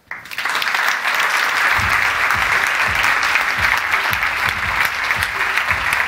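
Audience applauding, breaking out suddenly and holding dense and steady. From about two seconds in, a low thudding beat runs underneath.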